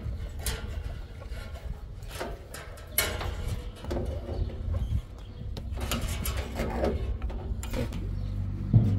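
Irregular knocks, clicks and scrapes from handling and fastening the sheet-metal housing of an evaporative air cooler as it is fixed to a wall, over a steady low rumble. The sharpest knock comes about three seconds in, another just before the end.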